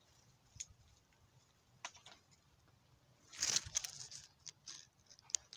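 Faint handling noise: a few scattered light clicks, with a brief rustle about three and a half seconds in as the shooter shifts and turns toward the camera. No shot is fired.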